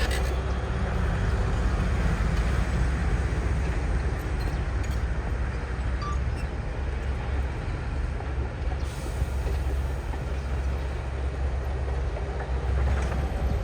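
Diesel engine of heavy earthmoving machinery, such as a crawler bulldozer or excavator, running with a steady low rumble.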